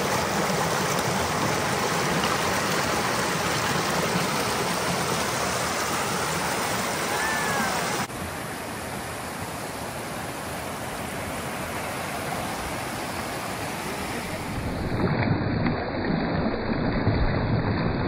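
Rushing water of a mountain stream, a steady hiss from low to very high pitch. It drops abruptly in level about eight seconds in and grows again with some low rumbling near the end.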